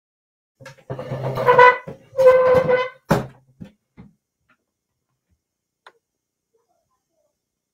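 Two loud honk-like blasts, each just under a second long, followed by a sharp knock; the rest is quiet.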